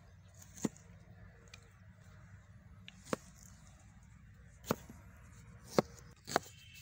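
Knife chopping red onions on a cutting board: five sharp knocks of the blade striking the board at uneven intervals, coming closer together toward the end.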